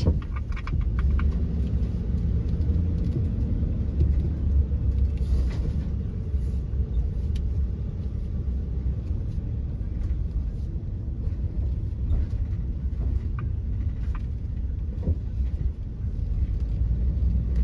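Steady low road and engine rumble inside the cabin of a moving vehicle, with a few faint clicks.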